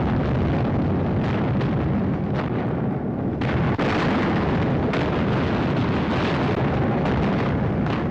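Explosion of a train on the rails: a continuous heavy blast noise, loud and steady, shot through with many crackling bangs, getting hissier about three and a half seconds in.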